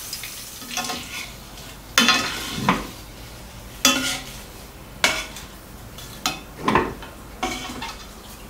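A wire-mesh skimmer and metal tongs clink and scrape against a stainless steel pan as deep-fried basil leaves are lifted out of the oil, with a light sizzle of frying underneath. The sharp clinks come irregularly, about eight of them.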